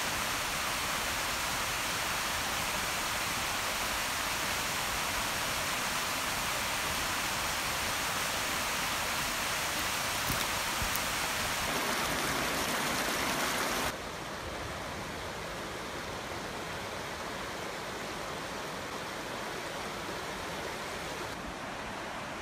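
Steady rush of a fast-flowing, rocky river, with no distinct events; about two-thirds of the way through it drops suddenly to a quieter but still steady rush.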